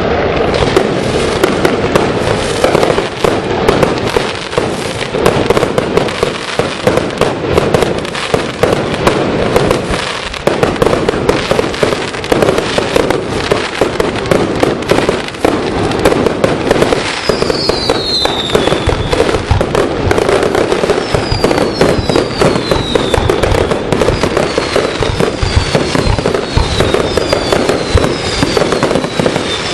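A fireworks display in a dense, continuous barrage of bangs and crackle. From about halfway through, short falling whistles come about once a second over the bangs.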